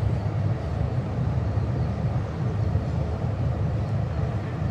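Steady low outdoor background rumble that flutters slightly in level.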